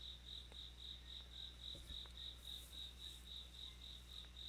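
A cricket chirping steadily, about four chirps a second, over a faint low electrical hum.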